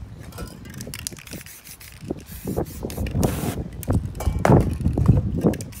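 Aerosol spray paint can hissing in short, irregular bursts as wet spray paint on a canvas is set alight and burns, with low whooshing rumbles from the flames, loudest in the second half.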